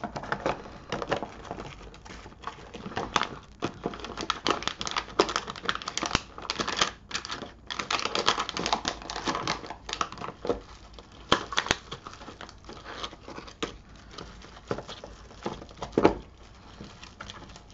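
Plastic component bags crinkling and rustling, with small irregular clicks of items knocking against a clear plastic storage box as they are packed in. There is one sharper knock near the end.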